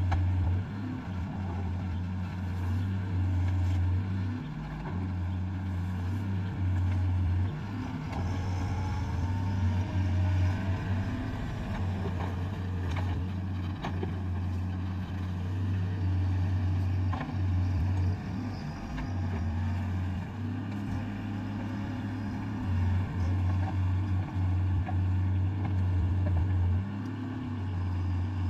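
Excavator's diesel engine running steadily under work, its low drone dipping and rising in places, with a few sharp clanks midway.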